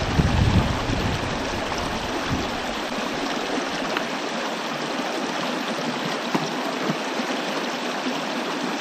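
River water rushing over a shallow, rocky rapid: a steady, dense hiss. A low rumble sits under it for the first couple of seconds, then drops away.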